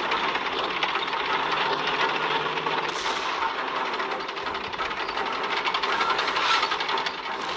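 Film sound effect of First World War tanks: a steady, dense mechanical rattling and clanking of engines and tracks with a hiss over it. A brief swish comes about three seconds in.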